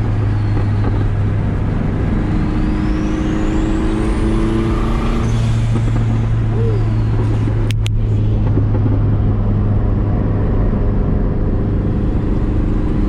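Turbocharged Honda H22A four-cylinder engine heard from inside the cabin, cruising steadily at about 3,000 rpm on light throttle. A couple of sharp clicks come just past the middle.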